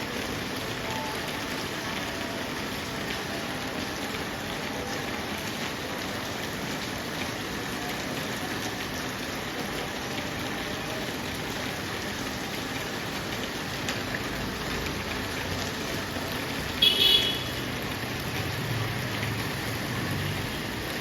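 Steady rain falling, an even hiss. About three-quarters of the way through, a brief high-pitched tone cuts through loudly for under a second, and a low rumble follows near the end.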